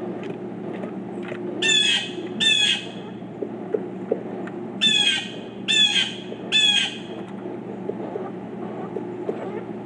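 Pileated woodpecker calling: five loud, half-second calls, a pair followed a few seconds later by a group of three.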